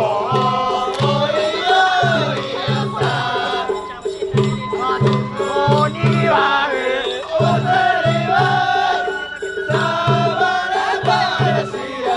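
Japanese festival hayashi music played on the float: taiko drums beat a repeating pattern under a wavering bamboo flute melody.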